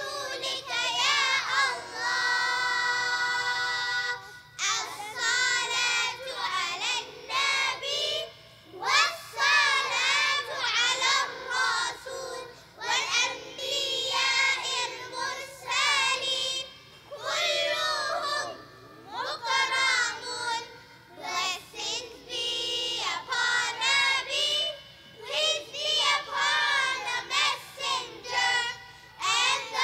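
A child's voice chanting melodically in phrases with short pauses between them, holding one long note about two seconds in.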